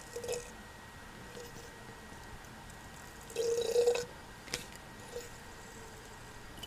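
Brand-new KYB New SR Special shock absorber being stroked, giving a brief jubo-jubo swish near the start and a longer, louder swish a little past halfway, followed by a sharp click. The swishing is reportedly its normal operating sound, not a sign of a worn-out or faulty shock.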